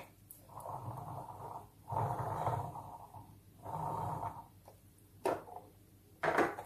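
Plastic wheels of a toy carriage rolling on a tabletop: three rough passes of about a second each, followed by two light clicks.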